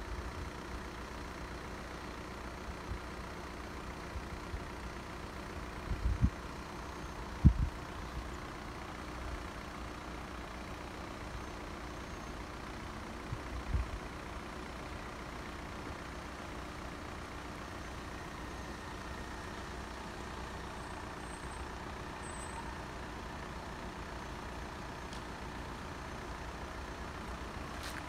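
Steady low background hum of road traffic and idling vehicles, with a few short low thumps around six to eight seconds in and again near fourteen seconds.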